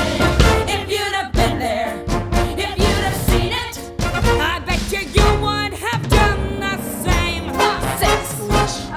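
Tango show tune from a stage musical's score: a band playing sharp accented beats with voices singing over it.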